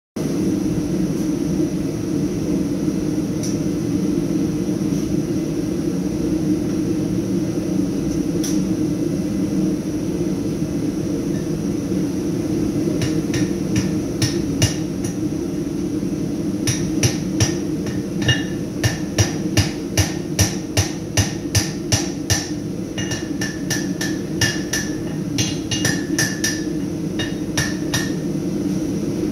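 Blacksmith's hand hammer striking hot steel on an anvil, forging a beak. A few blows come about halfway through, then a steady run of about two ringing blows a second. A continuous low roar runs under it all.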